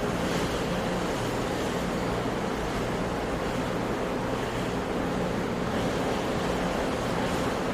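Sea surf washing continuously, a steady rush with no separate wave crashes standing out. A faint steady hum lies underneath.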